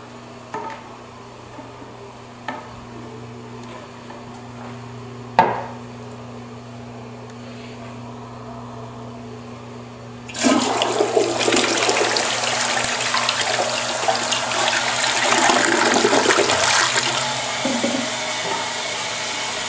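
Crane Athens tank toilet flushing: halfway through, a sudden loud rush of water starts and runs on, easing a little near the end. Before it there is a steady low hum with a few sharp clicks.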